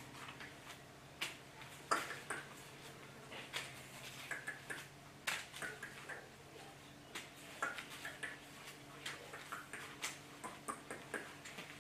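Irregular light clicks and taps on a tile floor as a feather lure toy is dragged and flicked over the tiles and a puppy scampers after it. A faint steady hum lies underneath.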